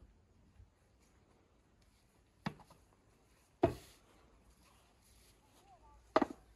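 Large wooden bowl and metal basin of strawberries set down on a wooden table: three sharp knocks, the loudest about halfway through as the wooden bowl goes down, the last near the end as the metal basin is set into it.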